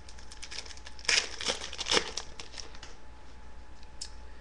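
Hockey card pack wrapper being handled by hand: crinkling rustles, loudest between about one and two seconds in.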